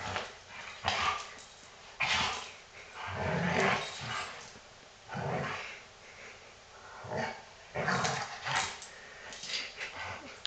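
Doberman growling and grunting playfully in a series of short bursts a second or so apart, as it rolls on its back wanting to play-fight.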